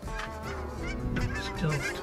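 A flock of geese honking and clucking, many overlapping calls at once.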